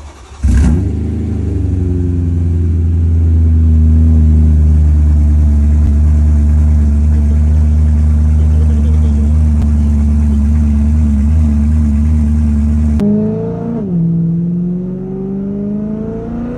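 Straight-piped BMW E92 M3's S65 V8 fires up about half a second in and settles into a loud, steady idle, which the owner treats as not yet warmed up. Near the end the sound cuts to inside the cabin, where the engine blips up and down once and then climbs steadily as the car pulls away.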